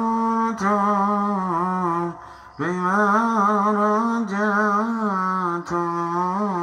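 A recorded man's singing voice, long held notes that waver and bend in pitch like a chant, played over Bluetooth through a small mixer into a loudspeaker. The phrases break off briefly about two seconds in and again near the end.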